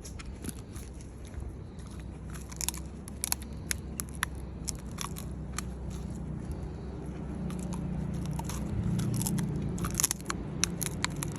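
A dog chewing and crunching on a chew, making irregular sharp crunching clicks, over a low rumble that swells toward the end.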